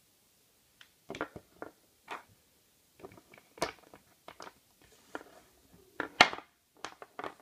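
Small plastic toy figurines being set down and shuffled on a tabletop by hand: an irregular series of light clicks and taps, starting about a second in, the loudest about six seconds in.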